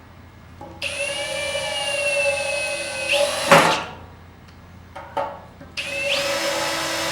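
Power drill running in two bursts of about three and two seconds, with two short trigger blips between them; a steady motor whine whose pitch jumps up near the end of the first run.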